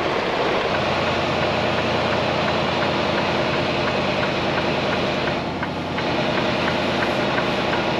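Freightliner Cascadia semi truck's diesel engine idling steadily, a low even drone, with a faint regular ticking over it through the middle.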